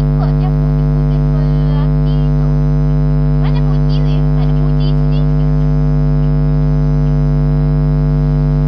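A loud, steady electrical hum with several buzzing overtones fills the recording. Faint snatches of a voice sound beneath it in the first half.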